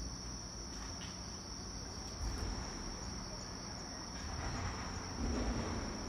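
Crickets trilling: one steady, high-pitched, unbroken trill over a low background rumble.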